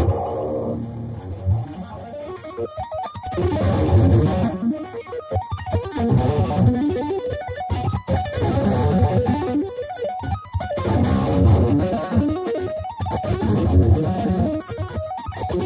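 Electric guitar played in fast shred runs with two-handed tapping on the fretboard, in phrases broken by short pauses.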